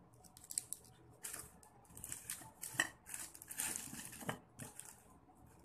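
Small foil-wrapped chocolates being handled and sorted by hand: short, irregular crinkling rustles of the wrappers with a few light clicks.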